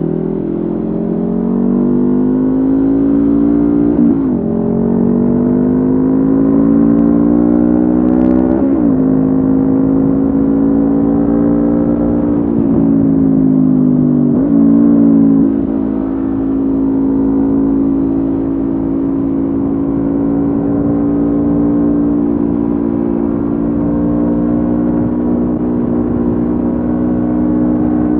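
Honda CB500F's parallel-twin engine running through a Mivv GP Pro slip-on exhaust under way. Its pitch climbs and breaks sharply several times over the first half as the rider shifts gears, then settles into a steady cruise.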